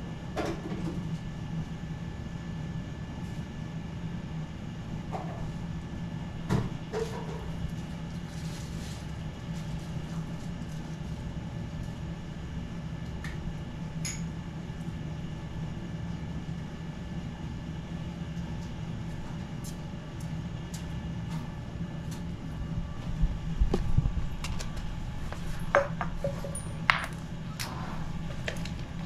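A steady low mechanical hum, with scattered clicks and clinks of handling and a few louder knocks near the end.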